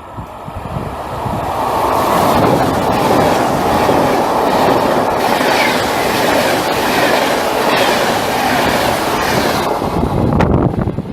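A train passing through on steel rails, building up over the first two seconds, then loud and steady with wheel clatter over the rail joints, and falling away near the end.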